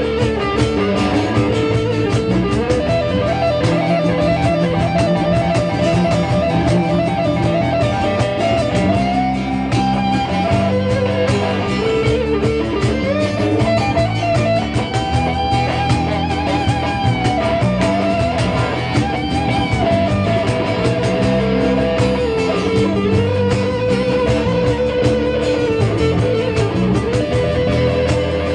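Live blues-rock band in full swing: a lead electric guitar plays held notes that bend up and down, over a bass and drum backing.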